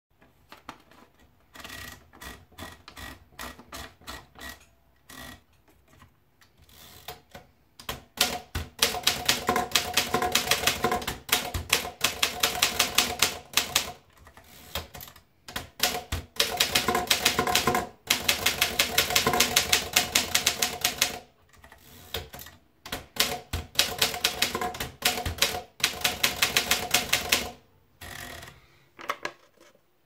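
Rheinmetall portable manual typewriter: paper is fed in with a series of light clicks, then the keys are typed in three fast runs of sharp typebar strikes, with short pauses between the lines.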